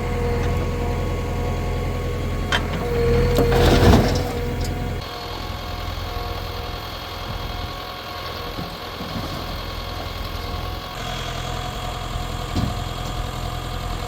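Heavy diesel machinery engine running, louder for a moment about four seconds in, then running quieter and thinner for several seconds before filling out again.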